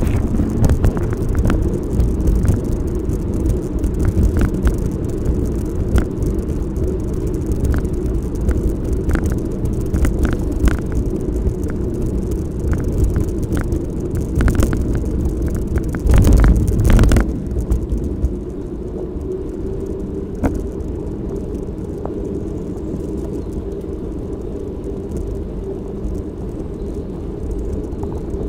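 Bicycle riding along a lane: steady wind and tyre rumble, with frequent rattles and knocks from the rough, cracked surface. A little over halfway through, the road turns to smooth tarmac and the sound settles into a quieter, even hum.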